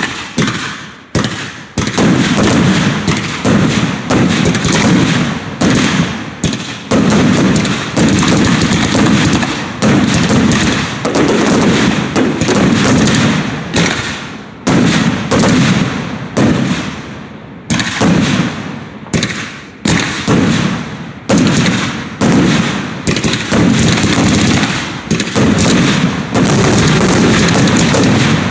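Aerial fireworks going off in a rapid barrage: loud bangs one after another, about one to two a second, each trailing off before the next.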